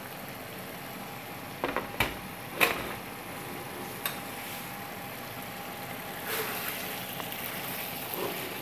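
Chicken curry simmering and sizzling in a pan: a steady bubbling hiss, with a few sharp clicks and knocks about two to four seconds in. Near the end a wooden spatula starts stirring through the pieces.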